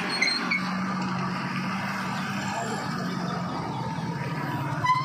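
Steady rushing of a flood-swollen river, with a vehicle engine humming close by. A horn begins to sound right at the end.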